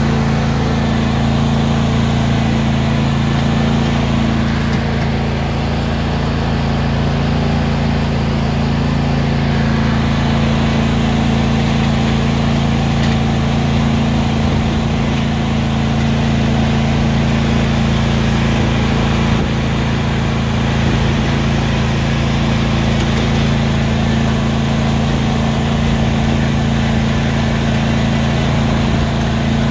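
John Deere riding lawn mower's engine running steadily at an even pitch as the mower drives along.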